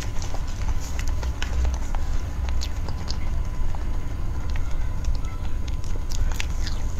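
Close-miked eating: steady chewing with a low pulsing rumble, with scattered small clicks and crackles of the spoon against the plate and the food.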